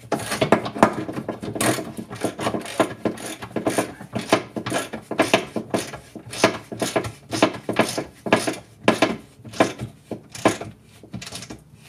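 Hand ratchet wrench clicking in repeated strokes, roughly two a second, as a leaf-spring mounting bolt on a 2006 Club Car DS golf cart is run in by hand.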